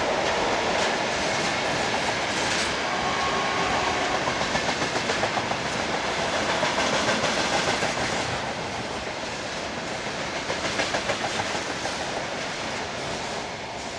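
Freight train rolling past, its wagon wheels clacking in a steady rhythm over the rail joints, growing gradually quieter toward the end.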